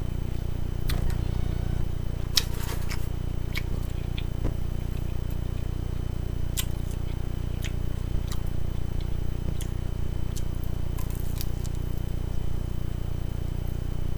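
A person eating close to the microphone: chewing, with scattered short clicks and crackles from the food and fork, over a steady low hum.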